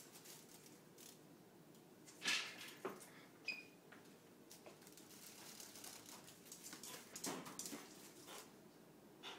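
Dog scrambling about on a tile floor among wooden chairs: scattered claw clicks and knocks, the loudest about two seconds in, with a brief high squeak a little later.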